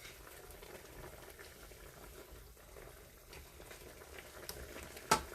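Chicken adobo bubbling at a boil in its pot of vinegar and soy sauce, a steady low sizzle-and-bubble with faint scattered ticks. A single sharp knock about five seconds in.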